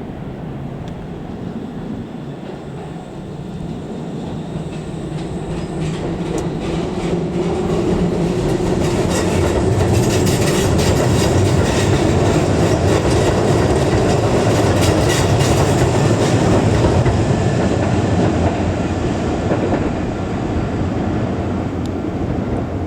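Keisei Kanamachi Line commuter train passing at a level crossing. The wheels clatter over the rail joints as it builds to its loudest for several seconds in the middle, then the rumble eases off as it goes by.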